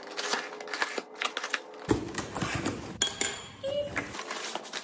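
Knife slitting the packing tape on a cardboard box, then the cardboard flaps being pried open: a run of quick scratchy clicks, rips and rustles.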